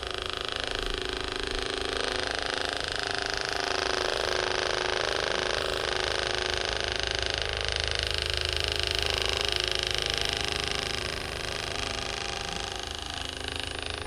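Toloco percussion massage gun running against the upper back: a steady motor whine over a fast, even hammering buzz.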